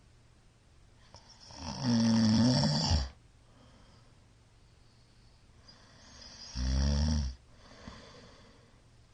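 A sleeping middle-aged man snoring loudly: one long, rough snore about a second and a half long, starting a little past a second in, and a second, shorter snore about six and a half seconds in. Faint breathing runs between the two snores.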